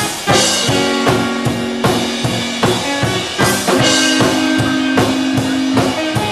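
Live band music: a drum kit keeps a steady beat with bass drum and snare, with cymbal crashes about a third of a second in and again about halfway, under sustained chords.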